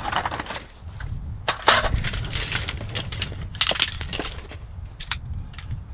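Folding metal tripod stand being pulled from its fabric carry bag and unfolded. The bag rustles and the metal legs clack and knock, with a few crisp clicks near the end.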